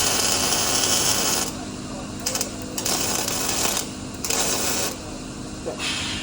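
Welding arc crackling and sizzling in about five bursts, the first about a second and a half long and the rest shorter, as the weld burns through paint on the steel.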